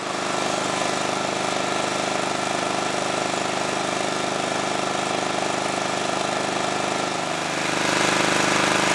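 Portable petrol generator running steadily, a small engine's rattling drone, getting a little louder near the end.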